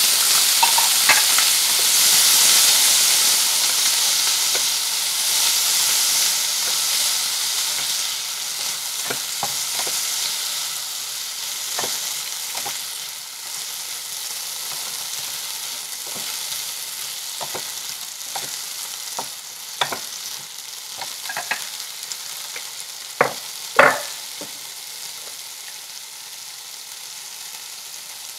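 Chopped okra sizzling in a frying pan as it is stirred with a wooden spatula, with scattered clicks and a couple of sharp knocks near the end. The sizzle is loudest at the start and dies down gradually.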